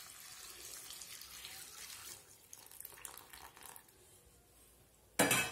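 Hot water pouring in a steady stream onto cauliflower florets in a steel bowl, tapering off after about two seconds into a few drips. A short, sharp knock near the end.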